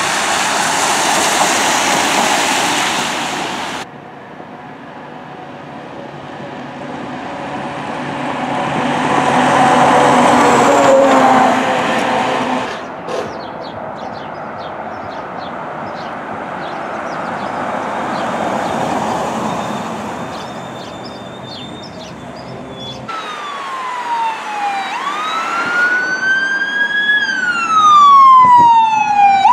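Fire apparatus on emergency runs, heard in a string of short clips: loud road and engine noise from passing trucks, then, in the last six seconds, an electronic siren wailing, its pitch sweeping down and up.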